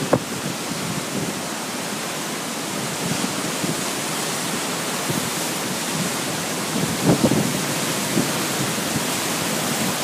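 Rough sea surf breaking over shoreline rocks: a steady hissing wash of water and spray, with a few louder surges about seven and eight seconds in.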